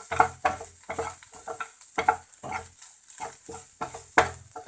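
Spatula stirring and scraping a mashed potato and vegetable stuffing in a hot pan, in repeated strokes about two to three a second, over a faint sizzle.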